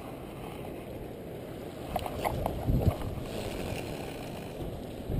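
Wind rumbling on the microphone and water sloshing against jetty rocks. A few short clicks come about two seconds in, followed by a louder thump just before the three-second mark.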